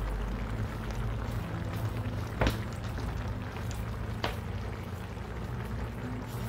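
A pot of gumbo simmering on the stove: a steady bubbling with a low hum under it. Two sharp clicks come a little under two seconds apart, near the middle.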